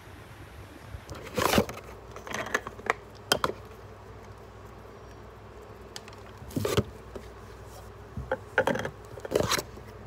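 Plastic toner bottle and its screw cap being handled: several short bursts of clicking, tapping and rubbing with pauses between.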